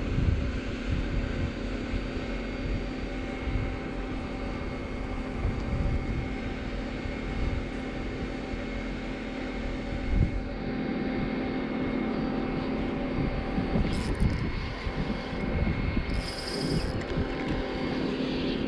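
Wind buffeting the microphone over a steady droning hum, with a few clicks and a brief high-pitched buzz near the end.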